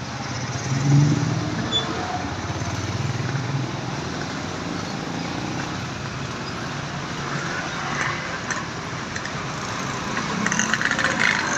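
Roadside traffic noise as motor vehicles pass. A heavy engine's low rumble is loudest about a second in, and a brighter swell of road noise comes near the end. No musical horn is heard.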